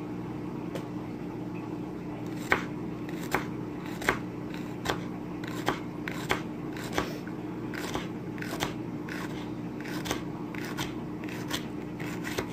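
Knife slicing through a fresh jalapeño pepper and knocking the cutting board, a crisp chop roughly every three-quarters of a second, beginning about two seconds in, over a steady low hum.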